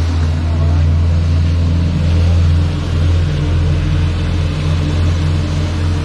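A motor vehicle's engine running steadily, close by, as a loud, even, low drone that holds one pitch.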